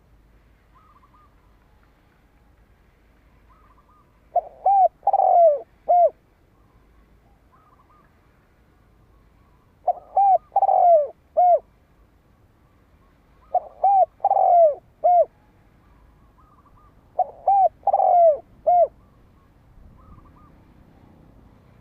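Male spotted dove cooing its song, a dove-decoy call meant to provoke rival males: four phrases about three and a half seconds apart. Each phrase is a few coo notes with a longer, louder note in the middle. Faint short higher calls from another bird come between the phrases.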